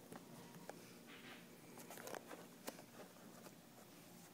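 Near silence: quiet room tone with a few faint scattered clicks and rustles, one slightly sharper click about two and a half seconds in.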